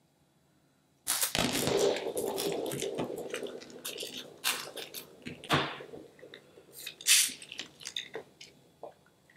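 Water-bead-filled squishy stress ball being cut open and squeezed. A sudden burst of wet squishing and crackling comes about a second in and fades over a couple of seconds. Scattered squelches and sharp clicks follow as the ball is worked in the hands.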